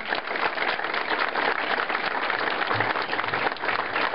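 Audience applauding, a dense steady patter of many people clapping.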